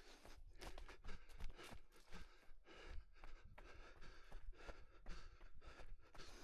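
A runner breathing hard in a quick, even rhythm of about three a second while running, with footfalls on the forest floor.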